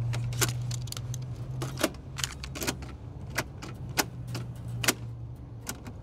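Plastic buttons on a large portable cassette boombox clicking as they are pressed over and over, about a dozen irregular clicks, over a steady low hum.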